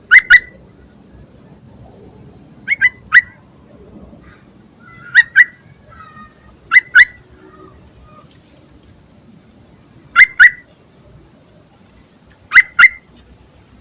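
Yellow-vented bulbul (trucuk) calling: six short, sharp phrases of two quick notes each (one of three), repeated every two to three seconds. The tags give it as a female calling for a male.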